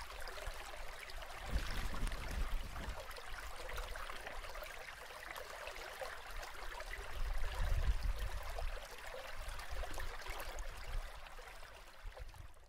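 Shallow spawning brook flowing over stones, a steady rush of babbling water, with two stretches of low rumbling about two and eight seconds in.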